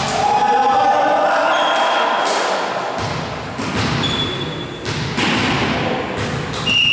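Volleyball thumping and bouncing on a gym floor: a run of separate thuds that echo in the hall, with a couple of short high squeaks and players' voices. A steady high whistle starts near the end.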